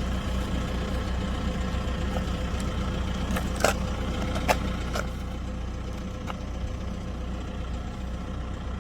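A vehicle engine running steadily with a low hum, with a few short, sharp clicks or squeaks about three and a half to five seconds in.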